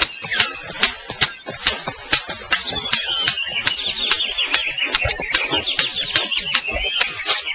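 Male superb bird of paradise's courtship display: sharp clicks about two and a half times a second, with a rapid chattering run of call notes in the middle.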